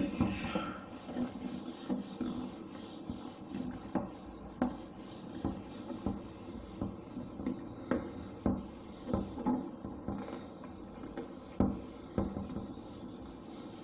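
Whiteboard eraser wiping marker writing off a whiteboard in a run of short, uneven rubbing strokes, one or two a second.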